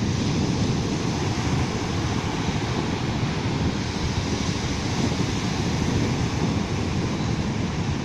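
Small ocean waves breaking and washing up a sandy beach: a steady rush of surf.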